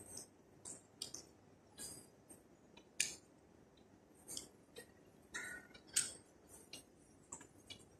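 Faint footsteps on a hard polished station floor: short sharp clicks about two a second.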